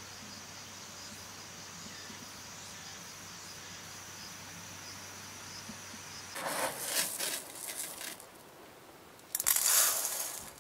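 Faint cricket chirping over a low steady hum, which cuts off abruptly about six seconds in. Then come rustling, scraping handling noises, with a louder rush of rustling near the end.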